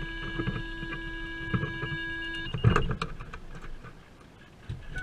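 A steady, buzzy electronic tone sounds inside a moving vehicle, over low road rumble. It cuts off about two and a half seconds in, and a single knock follows.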